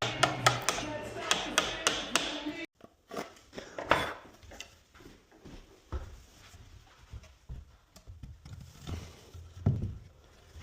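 Background music with sharp percussive hits that cuts off suddenly under three seconds in, followed by scattered knocks and taps, with a louder thud about four seconds in and another near the end.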